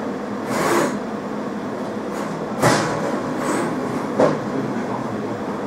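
Jewellery laser welding machine running with a steady mechanical hum while it self-checks and charges after being switched on. A few short, louder bursts break through it, the sharpest about halfway through.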